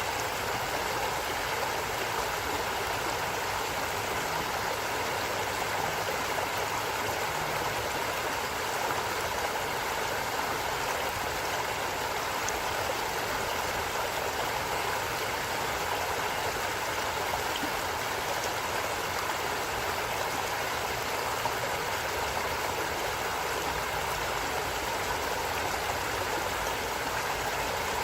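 Steady rush of flowing stream water, unchanging.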